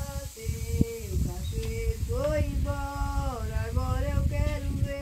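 An elderly woman singing a slow song, holding long notes that glide up and down.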